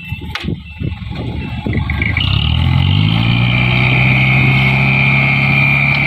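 Dump truck's diesel engine revving up about two seconds in and then holding at a steady high speed, with a steady high whine over it. A few knocks come before the rev.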